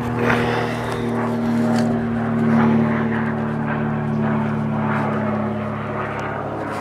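Small propeller airplane flying overhead, its engine running with a steady drone.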